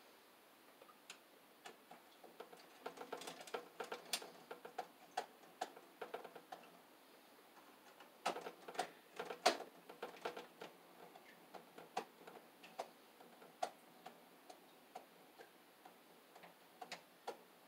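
Scattered small clicks and taps of a Romex cable and its clamp being worked into the bottom of a metal breaker panel. They come in two busier clusters, a few seconds in and again near the middle.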